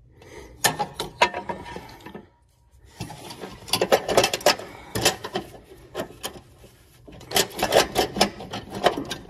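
Metal clicking and rattling as the PTO engagement cable end and its coiled spring on a Craftsman T1500 lawn tractor are worked by hand to unhook them, in three bursts of quick clicks.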